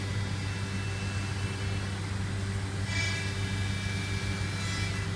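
Steady low mechanical hum of workshop machinery or ventilation, unchanging throughout, with a faint high whine rising over it about three seconds in.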